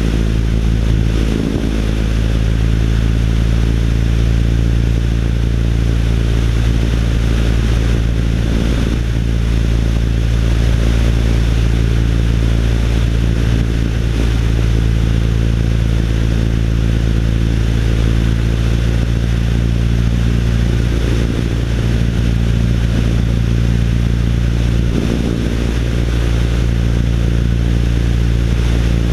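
Light aircraft's four-cylinder Lycoming engine and propeller running steadily in flight, with rushing wind, heard from a camera mounted outside the fuselage of a 1955 Piper Pacer.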